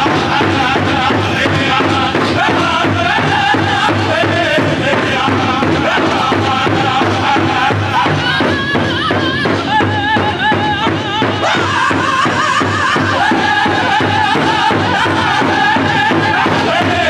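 Powwow drum group singing in wavering voices over a steady drumbeat.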